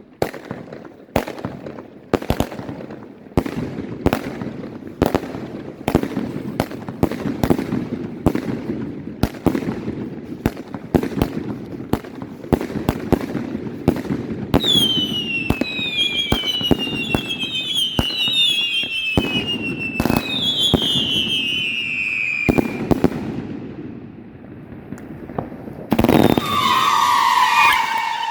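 A firework battery fires a rapid string of sharp bangs. Several whistles, each falling in pitch, join in over the second half of the volley. After a short lull, a screaming firework cake starts near the end with a loud, piercing whistle that falls in pitch.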